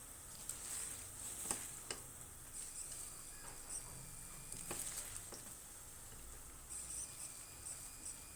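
Gongura (sorrel) leaves cooking in a pan on the stove: a faint, steady sizzle with a few light clicks of a utensil stirring against the pan.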